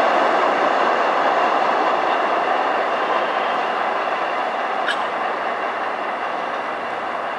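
Two Kawasaki R68A subway trains running away down an open-cut line, their rumble fading slowly as they recede.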